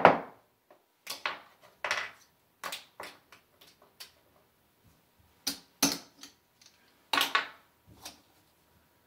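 Casino chips clicking against each other as they are picked up, stacked and set down on a craps table's felt: scattered sharp clicks in small clusters, the loudest clack right at the start.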